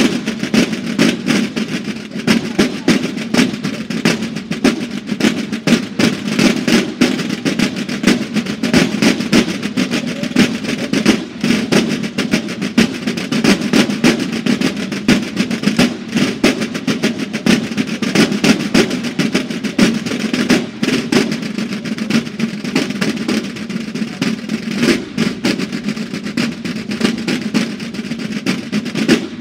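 Banda de guerra drum line playing marching snare drums: a loud, continuous stream of rapid strokes with no pause.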